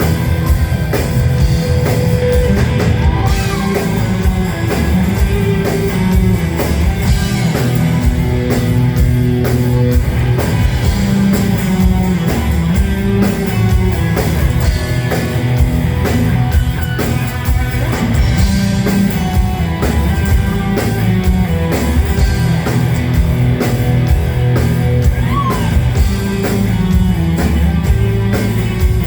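Rock band playing live and loud, with guitar over a steadily pounding drum kit and a heavy low end.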